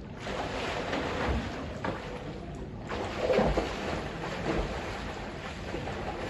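Water splashing and sloshing in a swimming pool as someone swims, with a few louder splashes, the biggest about halfway through.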